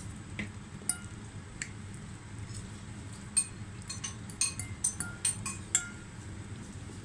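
Fork and spoon clinking against a bowl of noodle soup while eating: scattered light clinks, coming more often in the second half, over a low steady room hum.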